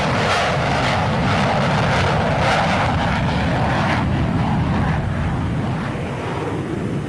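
Jet engine noise of Boeing's X-32 demonstrator in flight: a steady loud rush that turns duller about four seconds in.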